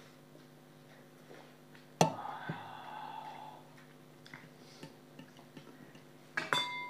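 A drinking glass set down on a hard surface with a sharp clack and a short ring about two seconds in. Near the end there is another clatter, followed by a steady ringing tone.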